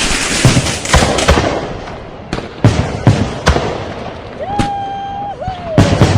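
Firecrackers and fireworks going off: a dense run of crackling pops for about the first second, then separate loud bangs every half-second or so. A brief held high tone sounds about two-thirds of the way in, between the bangs.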